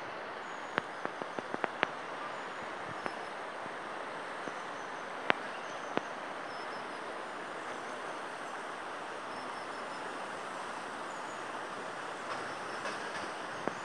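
Steady rushing hiss of the flooded Grand Morin river flowing fast, broken by a few sharp clicks, a cluster of them about a second in and single ones later.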